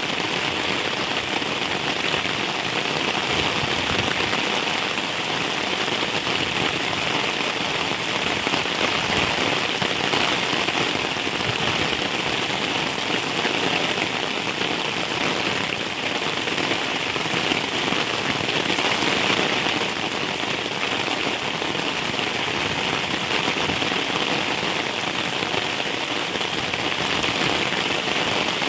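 Heavy rain falling steadily: a dense, even hiss of raindrops with no let-up.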